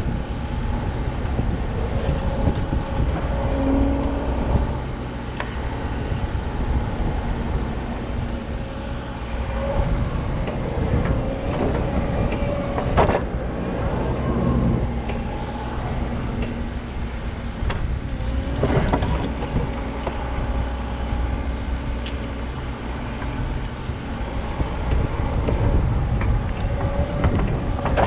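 Backhoe's diesel engine running steadily as it works, its pitch rising and falling. A sharp clank comes about 13 seconds in and another about 19 seconds in.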